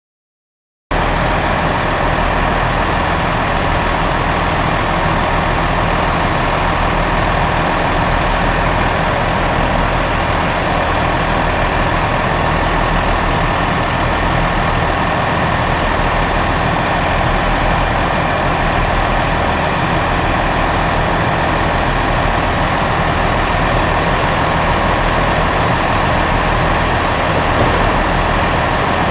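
Diesel train standing at a station with its engine idling: a steady low drone under an even, constant rush of noise. It starts abruptly about a second in and holds unchanged.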